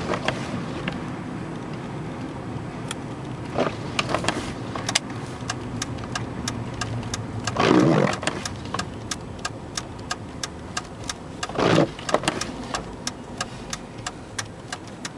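Inside a vehicle driving on snowy roads: steady engine and road rumble, with two louder swells of noise about eight and twelve seconds in and a run of quick sharp clicks through the second half.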